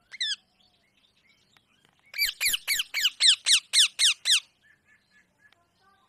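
Rose-ringed parakeet screeching: one short, wavering call at the start, then, about two seconds in, a fast run of about ten sharp screeches, each falling in pitch, four or five a second for about two seconds.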